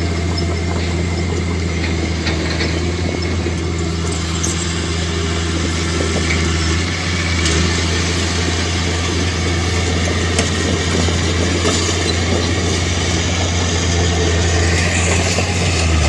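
Heavy diesel engine of earth-moving machinery running steadily: a deep, even drone, with a few faint clicks now and then.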